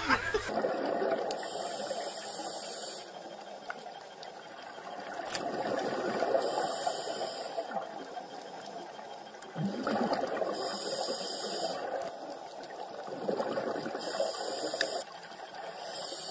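Underwater sound of a scuba diver breathing through a regulator: a rush of exhaled bubbles comes regularly about every four seconds over steady underwater noise.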